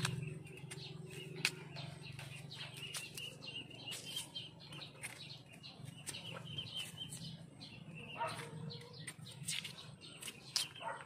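Large knife paring the skin off cassava roots: irregular short crisp clicks and scrapes of the blade on the tuber. Small birds chirp in the background.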